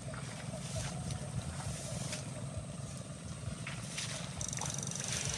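Footsteps and the swish of legs and gear pushing through tall grass and shrubs, with a few light crackles over a steady low rumble.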